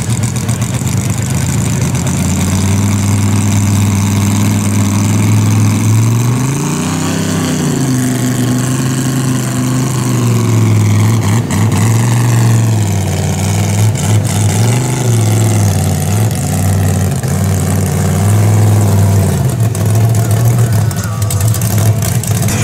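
Big V8 engine of a lifted mud truck on giant tyres, revving up and down repeatedly under load as it pulls a stuck pickup out of deep mud on a tow strap.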